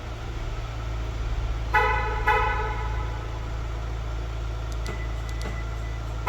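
Two short car-horn toots about half a second apart, around two seconds in, over a steady low engine hum of a car idling.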